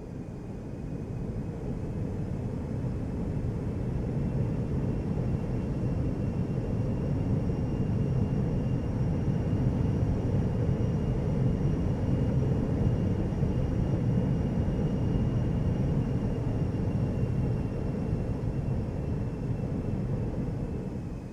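Jet engine run-up: a deep rumble with a faint high turbine whine. It swells over the first several seconds, holds steady, then winds down near the end.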